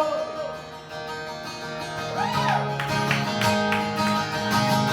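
Acoustic guitar playing chords in an instrumental gap of a country-style song, the singer's held note fading out at the start.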